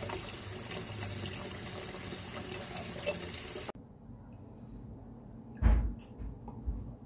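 Milk pouring in a stream into a saucepan of raw egg yolks: a steady liquid splashing hiss that cuts off suddenly about three and a half seconds in. After it, quieter handling noise with one dull low thump, the loudest sound, about two seconds later.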